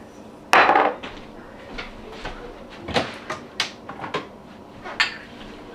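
A short shake of salt about half a second in, then a kitchen cupboard door opening and spice jars being taken out, with scattered light knocks and clicks.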